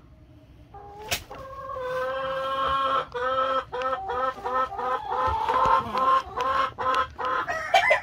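A chicken cackling in alarm: one long drawn-out call, then a run of short repeated clucks about three a second. The cackle is the sign of an agitated, fussing hen. A single sharp knock comes about a second in.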